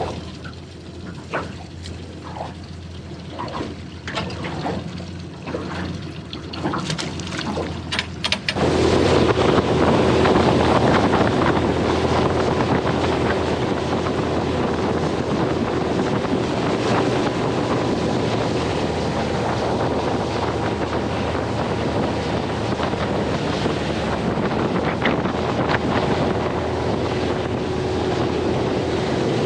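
Small boat's motor running under way, with wind noise on the microphone. It starts suddenly about a third of the way in, after a quieter stretch of scattered clicks and handling sounds, then runs steadily with a constant hum.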